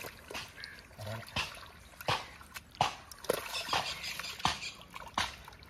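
Shallow water in a flooded paddy field splashing and dripping as hands grope through it for snakehead fish: a string of irregular sharp drips and splashes.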